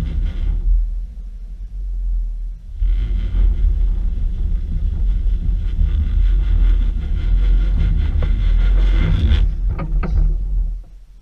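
Low rumble of a Subaru Impreza wagon, picked up by a camera mounted on the outside of the car. It eases off for about two seconds near the start, comes back, and fades away near the end.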